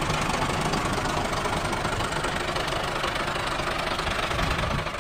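Tractor engine running steadily, fading out at the very end.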